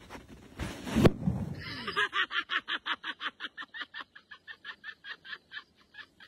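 A loud crash about a second in as a man belly-flops onto a plastic sled on ice, followed by an onlooker laughing in a long, high-pitched cackle of about six bursts a second that gradually fades.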